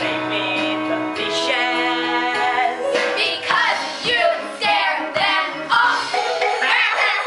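Musical theatre song, with singing voices over instrumental accompaniment. Long held notes for the first few seconds, then wavering sung phrases from about three seconds in.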